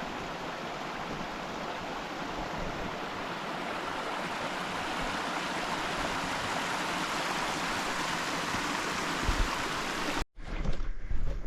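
Steady rushing of a mountain stream, with no change in level until it cuts off abruptly about ten seconds in.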